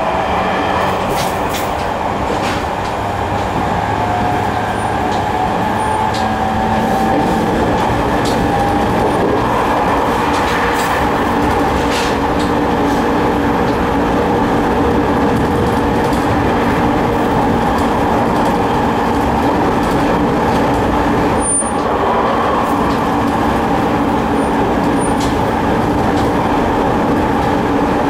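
Running sound inside a JR 209 series 3100-subseries EMU with a GTO-VVVF inverter and MT73 traction motors. The inverter and motor whine rises in pitch over the first several seconds, then holds steady, over continuous rolling noise with a few clicks from rail joints.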